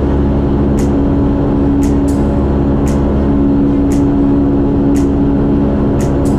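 Single-engine light aircraft's piston engine and propeller droning steadily in flight, heard inside the cockpit. A short sharp tick sounds about once a second over the drone.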